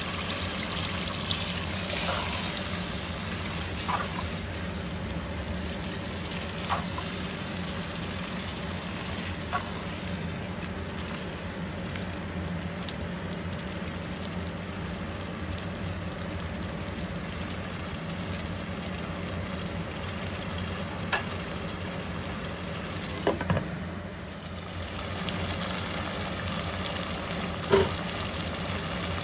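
Potatoes and peas sizzling in a tomato masala gravy in a non-stick pot, a steady frying hiss. A few short knocks from the spatula stirring against the pot.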